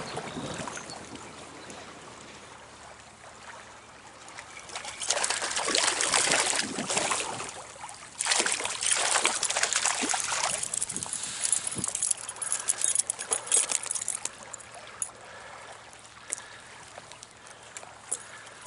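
A small trout stream trickling, with louder spells of splashing water about five to fourteen seconds in.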